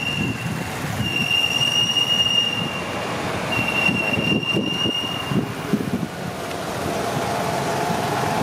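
Newborn macaque crying in long, high, steady squeals, each lasting about a second and a half with short gaps between them, over a low rumble. A lower steady drone comes in near the end.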